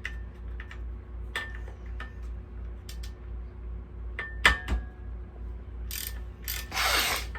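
Metal hand tools and small engine parts clinking and knocking during disassembly, with one louder ringing metal clank about four and a half seconds in and a short rasping noise near the end.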